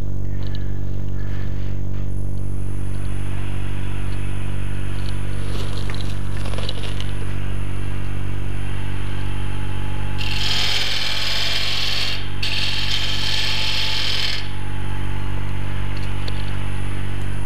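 Wood lathe motor running steadily with a hum. About ten seconds in, a carbide turning tool cuts into the spinning wood blank for about four seconds: a high scraping hiss, broken once by a short pause.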